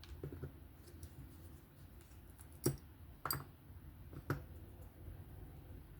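Small metal parts of a disassembled folding knife clicking and clinking as they are handled and set down, with three sharper clinks around the middle.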